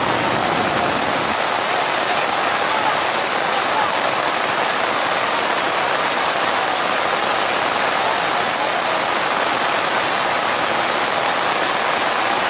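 Heavy rain pouring down steadily, an even, unbroken hiss of downpour with no pauses or changes.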